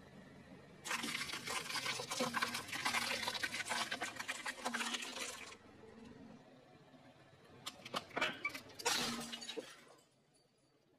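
Car tyre rolling over a row of brittle painted hollow balls, crushing them with a dense crackling crunch lasting about four seconds. A shorter burst of sharp snaps and crackling follows near the end, then the sound drops away.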